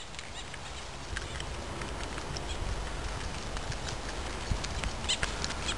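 Footfalls and rustling on a forest floor of dry twigs and needles, over a low rumble of wind or handling on the microphone.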